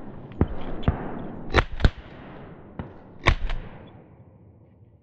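Twelve-gauge shotgun shots: two quick pairs of loud shots about a second and a half apart, with fainter sharp cracks around them and an echo trailing off after each.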